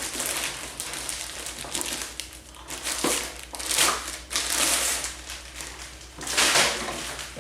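Paper and packaging crinkling and rustling in irregular bursts as a subscription box is unpacked by hand.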